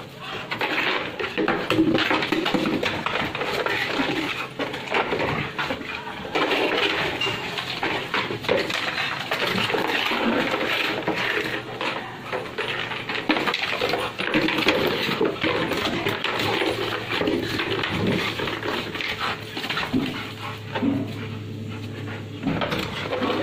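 A Rottweiler tussling with a plastic container on concrete: the container scrapes and clatters without a break, with many small knocks and sounds from the dog mixed in.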